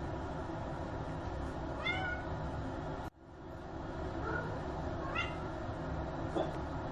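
Domestic cat meowing: three short meows that rise then fall, about two seconds in, just after four seconds and again a second later, over a steady low hum. The sound drops out briefly about three seconds in.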